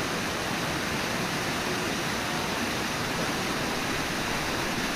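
Waterfall rushing steadily: the Brooks River pouring over Brooks Falls, a continuous even hiss and rumble of white water.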